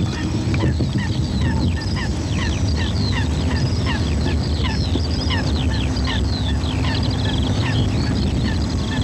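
A flock of birds calling, many short falling chirps a second overlapping one another, over a steady low rumble.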